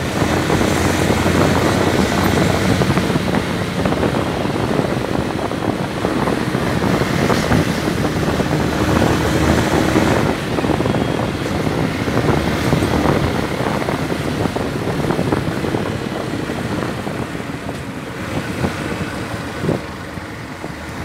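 Yamaha Factor 150 single-cylinder four-stroke engine running under way, heard with a steady rush of wind on the microphone. The noise eases somewhat over the last few seconds.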